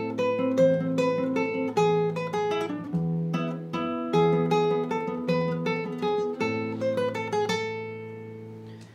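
Classical guitar fingerpicked: a melody of single plucked notes over held bass notes, the last chord ringing and fading out near the end.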